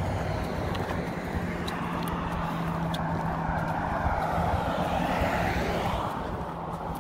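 Road traffic passing close by: tyre and engine noise of passing cars swells to a peak about four to five seconds in, then eases off, over a steady low engine hum.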